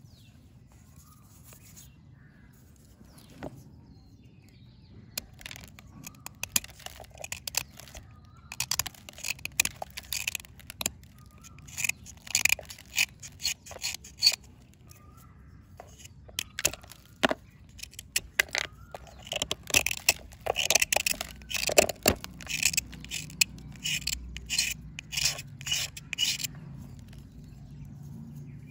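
A small knife blade scraping a dry, crumbly red bar in quick, repeated strokes that start a few seconds in and come in dense runs.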